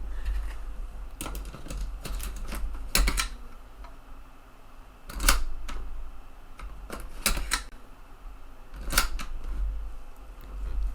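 Irregular sharp clicks and clacks, about seven, from a TEAC FD-235F 3.5-inch floppy drive's eject mechanism being worked by hand; the repairer suspects the eject mechanism is sticky.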